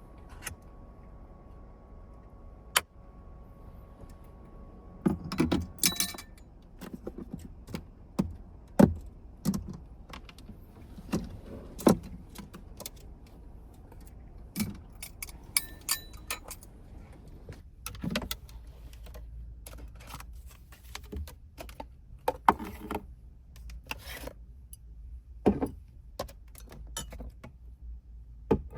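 Scattered clicks, clinks and knocks of small hard objects being handled, irregular and a few each second, over a steady low hum.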